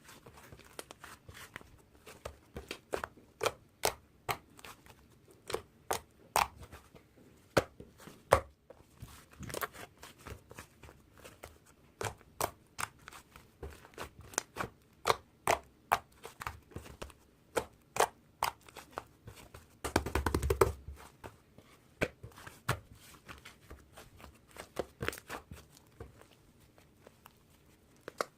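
Irregular sharp clicks and taps, about one or two a second, with a brief louder rustle and low thump about twenty seconds in.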